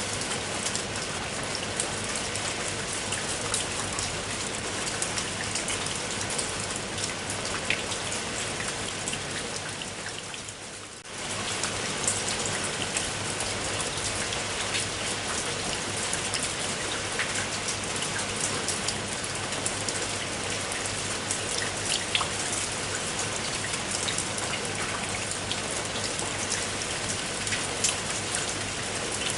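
Steady rain falling on a surface, with many separate drop ticks over a constant hiss. Around ten seconds in it fades down and then cuts back in abruptly a moment later.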